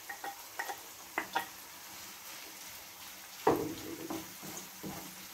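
A wooden spoon taps and scrapes against a bowl several times in quick succession, knocking chopped green onion into a frying pan. About three and a half seconds in there is a loud knock, then the spoon stirs the chopped onions in the pan over a faint, steady sizzle.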